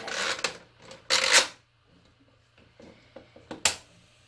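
Plastic toy playset pieces being handled: two short rattling, scraping bursts in the first second and a half, then a single sharp click near the end.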